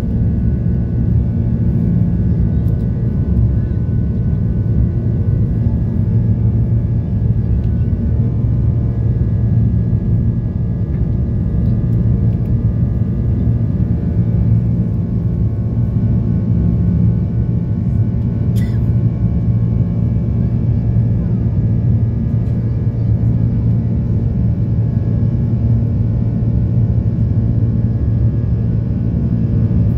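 Steady low drone of an airliner's jet engines and airflow heard inside the cabin as the plane climbs after takeoff, with a few steady humming tones in it. A single short click about two-thirds of the way through.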